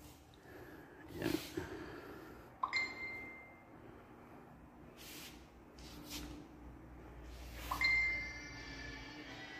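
Quiet shop background with a few short hissing noises and two brief, high ringing tones, one about three seconds in and one near the end.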